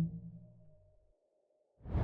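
A low pitched hit with several overtones, fading away over about a second, then a whoosh swelling up near the end. It is one turn of a repeating whoosh-then-hit sound effect, over a faint steady hum-like tone.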